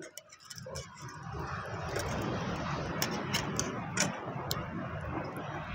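Fish balls deep-frying in hot oil in a metal kadai: a steady sizzle and bubbling that builds up about half a second in, with a few sharp clicks as a wire skimmer turns them.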